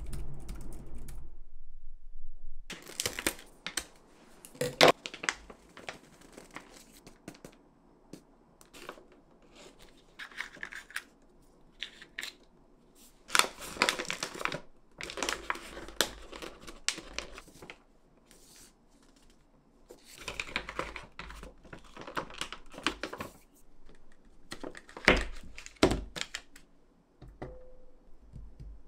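Food packaging being handled: plastic bags and a paper wrapper rustling, crinkling and tearing in irregular bursts with short quiet gaps and a few sharp clicks. A low hum sounds for the first second or so.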